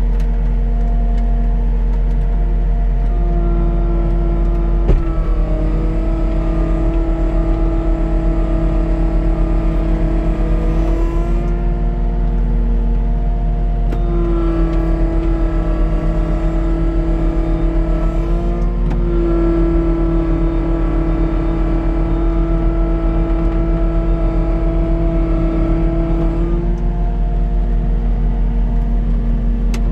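Cat 289D compact track loader's diesel engine running steadily under load while it drags a chained log. A whine comes in and drops out in long stretches of several seconds each. A single sharp knock sounds about five seconds in.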